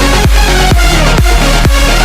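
Electronic dance music with a steady kick drum beating about twice a second over heavy bass and synths.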